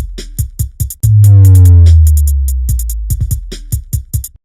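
Electronic dance music with a drum-machine beat: a deep bass note hits about a second in and fades, under fast hi-hat ticks, and the music cuts off abruptly near the end.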